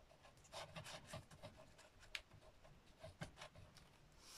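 Very faint handling sounds: card rubbing and a few light ticks as glue is squeezed from a plastic craft-glue bottle onto a card piece, with the clearest tick about two seconds in.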